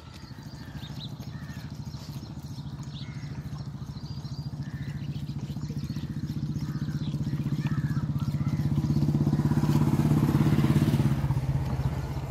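A motor vehicle's engine running with a steady low hum, growing louder over about ten seconds to a peak near the end and then fading as it passes.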